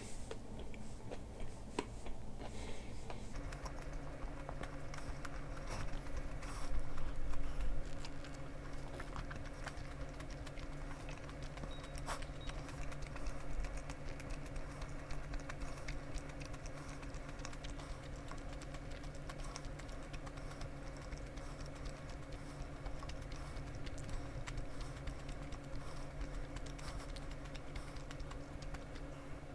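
Eating sounds: scattered small clicks and soft chewing noises over a steady low hum.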